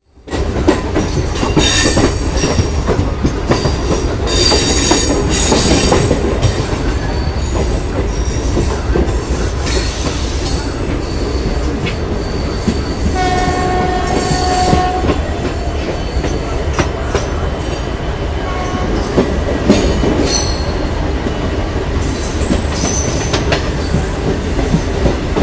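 Diesel locomotive passing close by with wagons in tow: a steady loud rumble of engine and wheels on the rails. About halfway through, one horn blast is held for about two seconds, and some high squealing notes come in the first few seconds.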